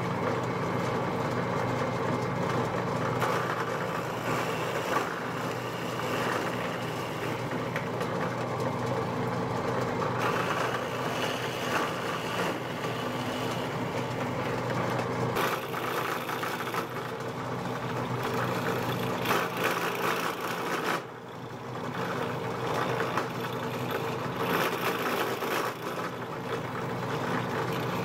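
Drill press motor running steadily while its bit bores a series of holes into a wooden workpiece, the cutting noise coming and going over the steady motor hum as each hole is drilled.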